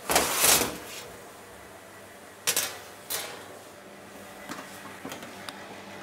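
Metal loaf tins set down on a stainless steel counter: two sharp clanks about two and a half and three seconds in, after a louder clatter at the very start. A few faint ticks follow, over a steady low hum.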